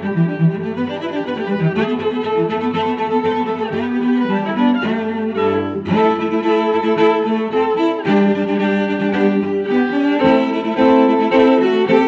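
Background music played on bowed strings, violin and cello, with sustained notes.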